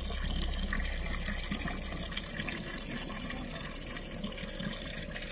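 Spring water pouring steadily in a thin stream from a wooden spout, splashing onto rock and into a water-filled log trough.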